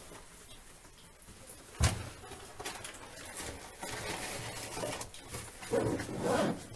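A sharp knock about two seconds in, then rustling and scuffing, and soft wordless voice sounds, like low cooing, near the end.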